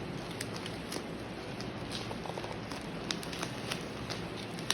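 Bubble wrap packaging being pulled open by hand, crackling and rustling with scattered small clicks and one sharper click near the end.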